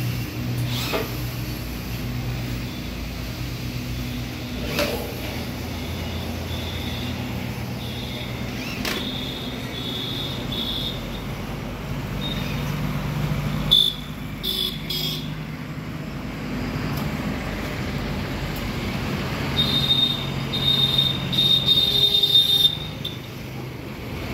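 Outdoor street and traffic noise with a steady low engine hum, a few sharp clicks in the first seconds, and a high thin tone that comes and goes midway and again near the end.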